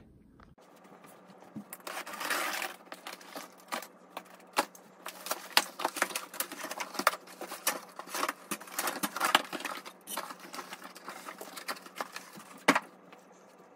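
Long cardboard shipping box being opened and handled, its flaps rustling and scraping, with irregular clicks and knocks from the stainless-steel drying-rack tubes inside as they shift and are lifted out. One sharper knock near the end.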